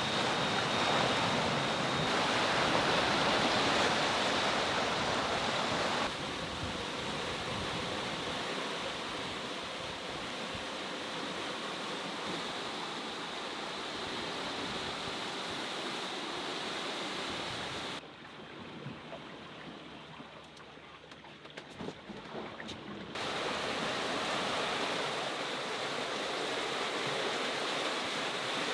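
Sea water rushing and waves washing past a sailing yacht under way, with wind on the microphone. It drops suddenly to a quieter stretch with scattered clicks about two-thirds of the way through, then comes back up.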